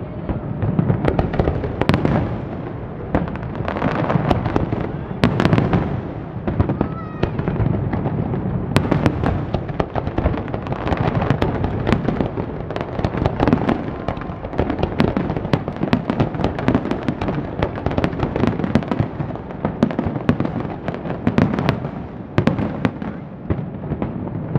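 Aerial fireworks barrage: a continuous, rapid run of shell bursts and crackling, with many sharp bangs close together.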